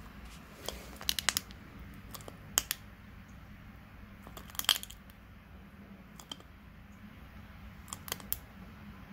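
Bosc monitor lizard biting a giant African land snail, its jaws cracking the shell in a series of sharp crunches and clicks, the loudest about halfway through.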